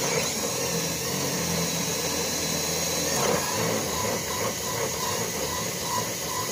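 DeWalt cordless drill running steadily under load, its twist bit boring a hole through an untreated 2x8 wooden board.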